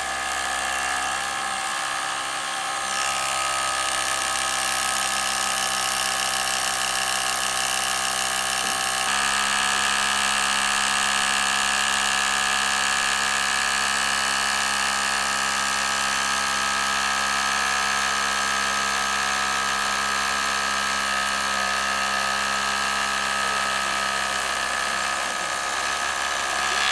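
SDS rotary hammer drilling a full-carbide-head masonry bit into reinforced concrete, lined up on half-inch rebar: a steady hammering drone that grows louder and fuller about nine seconds in.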